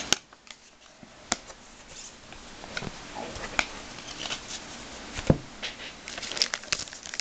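Trading cards being handled on a table: soft shuffling and sliding with a few sharp clicks and taps as cards are flicked through and set down.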